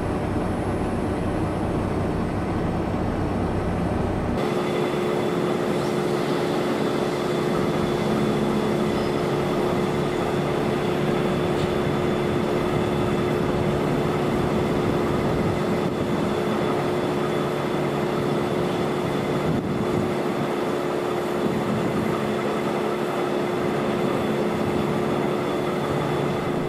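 DB Class V100/212 diesel locomotive running steadily. About four seconds in the sound changes abruptly: a low hum drops out and a steady, even drone takes over.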